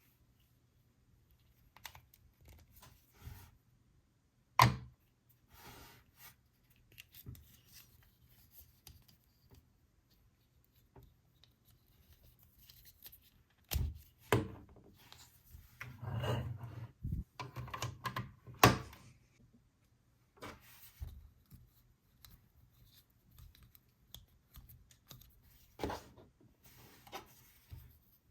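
Hands handling plastic toys and their packaging: scattered clicks, taps and knocks with short bursts of rustling, the sharpest knocks about four and a half seconds in, around fourteen and eighteen seconds, and near the end.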